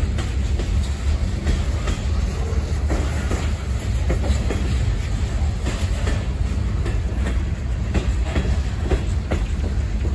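Freight train cars rolling past at close range: a steady rumble with irregular wheel clicks over the rail joints.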